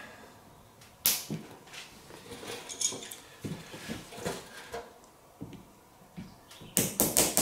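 Scattered light clicks and knocks of hand tools tightening a hose clamp onto a rubber sprayer hose, with a sharp click about a second in and a quick run of sharper clicks near the end.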